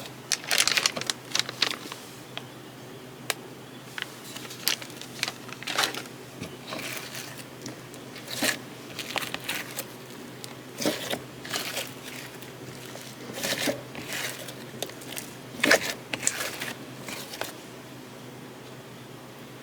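Slime being squished and worked by hand, giving irregular wet crackles and small pops that stop a couple of seconds before the end.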